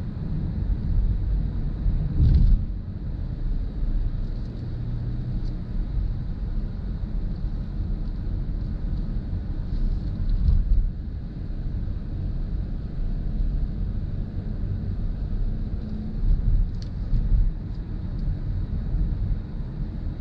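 Steady low road and tyre rumble inside the cabin of a 2020 Mazda CX-30 on the move, with a brief louder thud about two seconds in.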